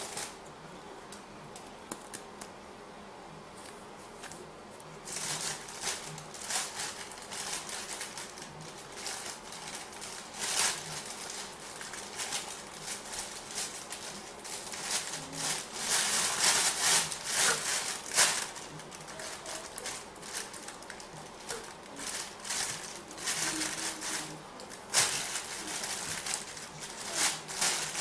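Close handling noise of a shoelace being wrapped and knotted around the end of a wooden stick: irregular scratchy rustles of cord on bark and fingers, with small clicks. It is quiet for the first few seconds, then the rustling goes on densely to the end.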